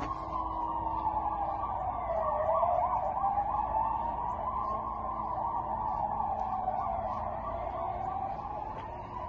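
Electronic siren wailing slowly up and down, switching to a rapid yelp for about a second, around two and a half seconds in.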